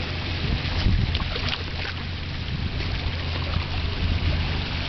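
Wind buffeting the camera microphone: a steady low rumble, with a few small handling clicks.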